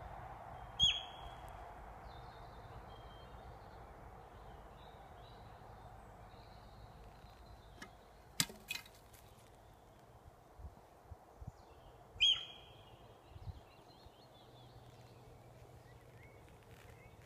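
Sika deer hind giving her alarm call twice, about eleven seconds apart: each a short, sharp, high squeak that drops in pitch. A sharp click comes about eight seconds in, with a few softer clicks later and faint birdsong behind.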